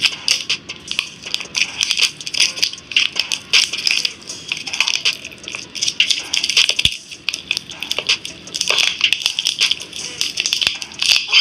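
Dense, irregular crunching and crackling clicks, packed closely together, with a short lull about seven seconds in.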